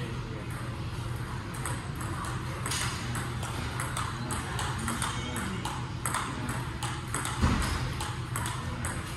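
Table tennis rally: the celluloid-plastic ball clicking off paddles and table in a quick, steady rhythm of a few hits a second. One low thump about seven seconds in.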